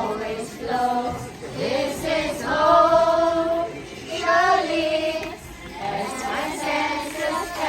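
A group of high voices singing a slow song in long held notes.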